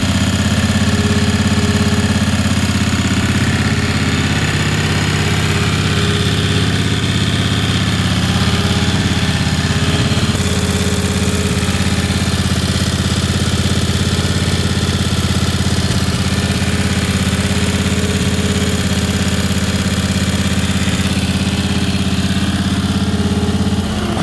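Briggs & Stratton 18 hp Vanguard V-twin engine running steadily and smoothly with a less restrictive STENS air filter fitted. It no longer runs rich as it did with the more restrictive OEM filter. It is switched off at the key near the end.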